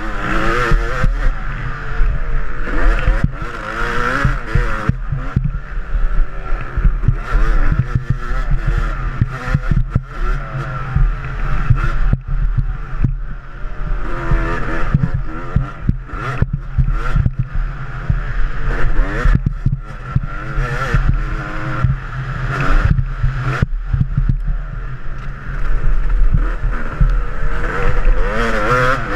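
Dirt bike engine revving up and down again and again as the bike accelerates and backs off around a motocross track, with wind rush and jolts from the bumps on the rider-mounted camera.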